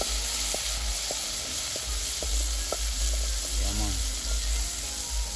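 Curry seasonings (onion, sweet pepper and scallion) sizzling in hot oil in a steel pot over an open wood fire: a steady hiss with a few small crackles.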